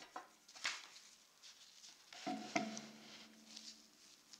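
Faint scraping and light taps of a metal painting knife on paint and paper, a few short strokes with gaps between them, and a brief low hum near the middle.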